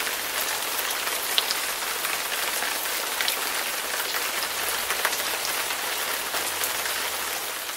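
Rain falling: a steady hiss dotted with small drop ticks.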